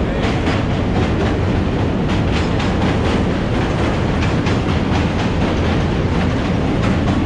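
Subway train crossing the Manhattan Bridge, its wheels clattering over the rail joints in a quick run of clacks over a steady low rumble.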